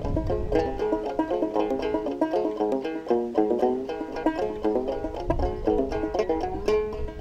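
Fretless open-back banjo played clawhammer style: a quick reel of plucked notes, with low wind rumble on the microphone now and then.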